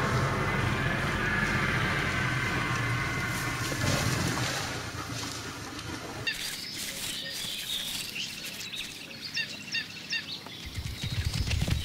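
Steady rushing outdoor ambience with a low rumble, then, after about six seconds, small birds chirping repeatedly over quieter background. Low thuds start near the end.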